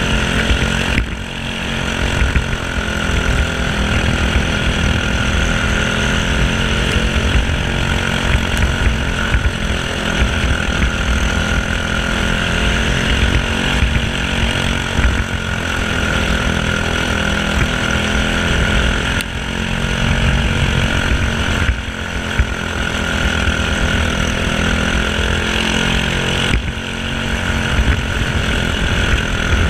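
Briggs & Stratton LO206 single-cylinder four-stroke kart engine running hard on track, its pitch rising and falling over and over as the kart goes through the corners, with a few brief dips where the throttle is lifted.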